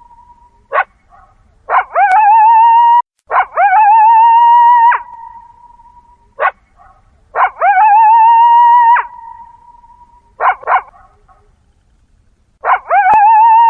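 Coyote calls repeating four times. Each is one or two short yelps, then a long howl that rises, holds with a wavering pitch for about a second and a half, and drops off at the end. One howl cuts off abruptly about three seconds in.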